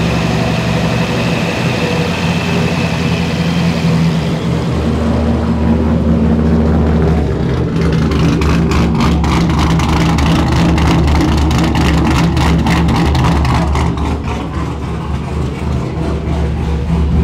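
LS V8 engine in a swapped Mazda Miata idling steadily on a new throttle body, now holding and returning to a proper idle, the sign that the old throttle body caused its intermittent idle problem. The idle speed steps up slightly about five seconds in, and from about seven seconds the separate exhaust pulses come through more distinctly and rhythmically.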